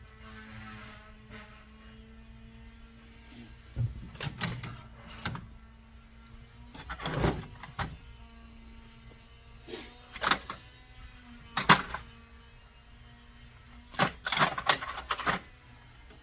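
Small metal carburetor parts and hand tools clicking and clattering in several short bursts, over a steady low hum.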